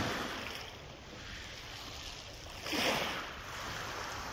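Small waves washing onto a pebble beach: two surges about three seconds apart, the second louder, each fading away over about a second.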